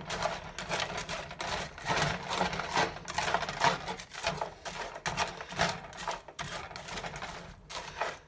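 Frozen chicken fajita mix crackling and sizzling in a hot oiled skillet, with a spatula scraping and stirring it in quick, irregular clicks and scrapes.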